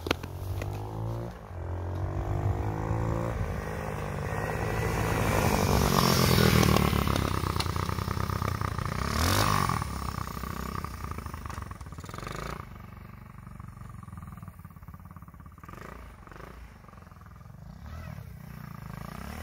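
Single-cylinder four-stroke 110cc pitbike engine on a homemade mobility scooter, revving up as it accelerates and loudest near the middle. It then fades into the distance as the scooter rides away.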